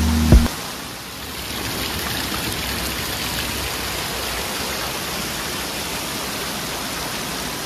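Water feature running: a steady rush of falling, splashing water.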